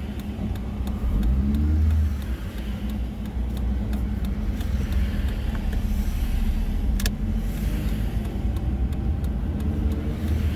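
Car engine running with steady tyre and road rumble as the car drives along, with a short click about seven seconds in.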